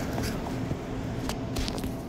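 Footsteps and scuffling through tall grass, with a few sharp knocks, over a steady low hum.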